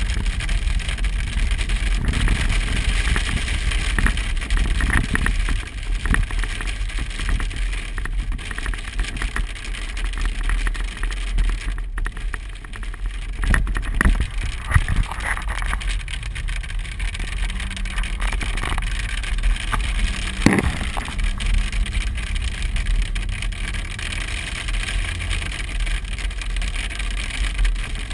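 A car driving through a storm, heard from inside the cabin: a steady engine and road rumble under a hiss of falling rain and hail. Scattered sharp ticks strike the body and glass, with one louder hit about twenty seconds in.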